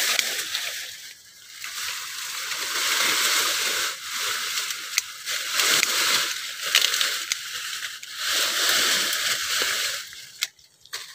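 Leaves and dry bamboo litter rustling in waves as branches are pushed aside and handled, with a few sharp snips of hand pruning shears cutting durian branches.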